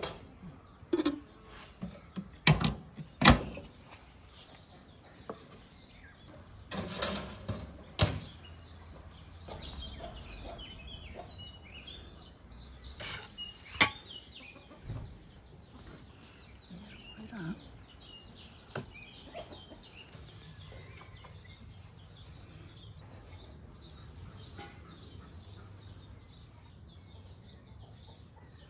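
Outdoor yard ambience with birds chirping throughout, and a few sharp knocks and clatters of utensils and baking trays being handled in the first half.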